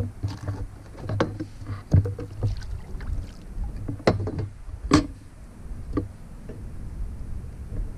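Sharp knocks and thumps against a plastic fishing kayak's hull, about five strong ones with smaller taps between, as a caught fish and gear are handled on board.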